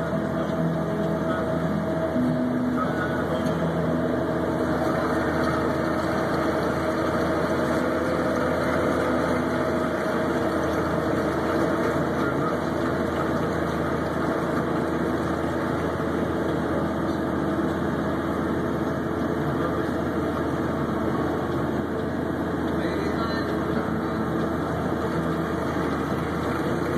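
Snowcat's diesel engine running steadily while the machine grooms the slope, a constant even hum.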